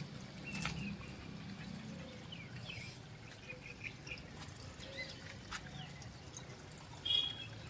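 Faint trickle of water running from the open end of a garden hose onto soil, with a few short, faint bird chirps.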